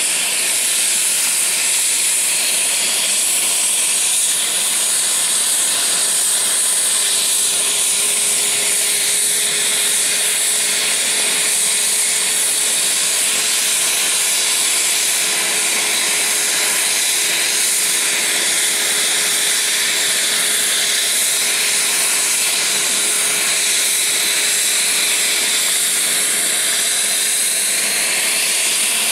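Airbus H145 helicopter's twin turboshaft engines running on the ground: a steady, loud, high-pitched hiss with faint whining tones underneath.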